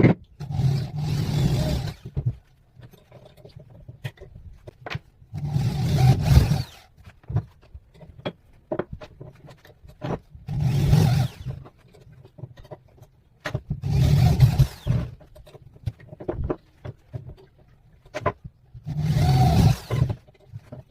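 A power tool running in five short bursts of about a second and a half each, with sharp clicks and knocks of wood being handled in between.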